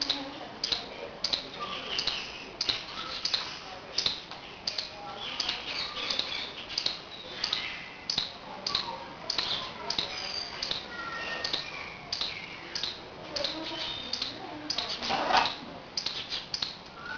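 Blue-and-gold macaw making a quick run of sharp clicks with short soft chirps and chatter, and one louder call about fifteen seconds in.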